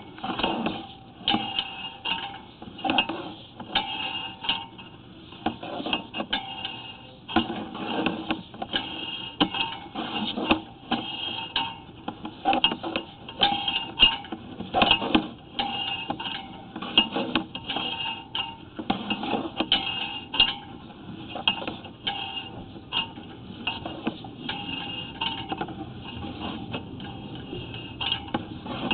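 Sewer inspection camera's push cable being pulled back out of the line, the cable reel clattering with short rattling clicks, irregularly about once or twice a second.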